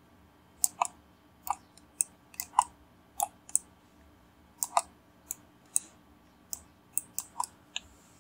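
Computer mouse buttons clicking: irregular single clicks and quick press-and-release pairs, a couple of times a second.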